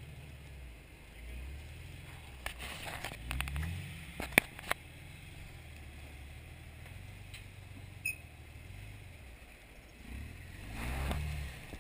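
Jeep Wrangler TJ engine running low and slow, revving up briefly twice while crawling over rock. A few sharp knocks and clanks come with it, the loudest about four seconds in.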